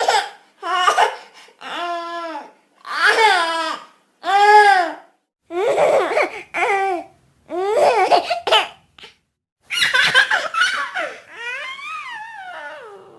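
A baby laughing and cooing in a string of short, high-pitched bursts, each about a second long, with clean silent gaps between them.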